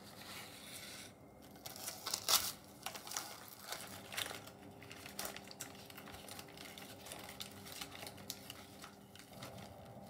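Baking paper rustling and crinkling in irregular bursts as it is peeled away from a slab of set chocolate ganache, with the loudest crinkle about two seconds in.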